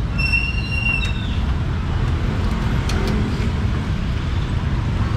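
Steady low rumble of street noise, with a high steady tone lasting about a second near the start that dips in pitch as it stops.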